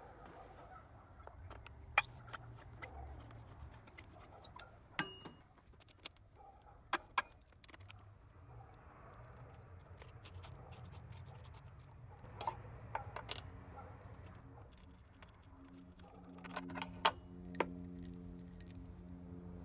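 Scattered light metallic clicks and jingles of a 10mm socket wrench and loose steel cover bolts being handled as the bolts are taken out. A low steady hum comes in near the end.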